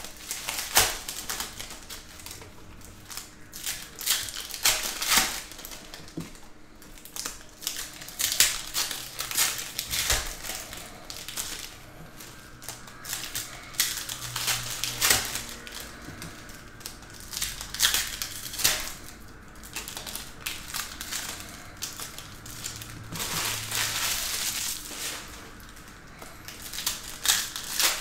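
Trading-card packs in shiny foil wrappers being handled and opened, with the cards inside shuffled: irregular crinkling and rustling broken by many sharp clicks and snaps.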